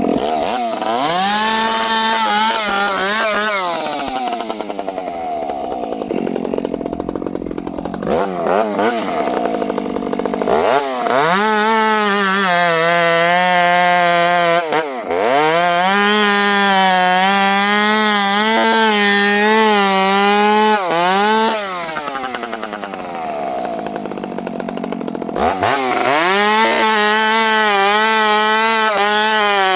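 Dolmar 7300 two-stroke chainsaw, fitted with a small open pipe in place of the stock muffler, revving to full throttle in cuts with its pitch wavering under load. It drops back several times between cuts and revs up again near the end.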